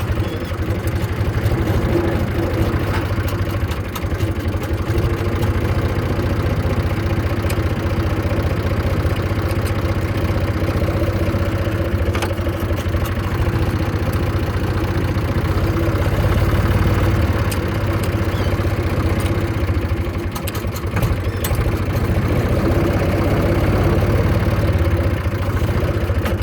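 Zetor 3320 farm tractor's diesel engine running steadily, with a few faint clicks and rattles on top.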